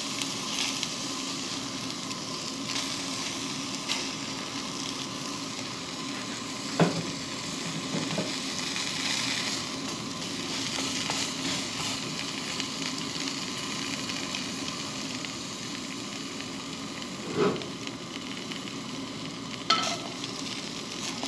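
Bagel halves sizzling in a hot skillet on a propane camp stove, a steady frying hiss. A few sharp knocks and clinks come from metal tongs against the pan as the halves are turned.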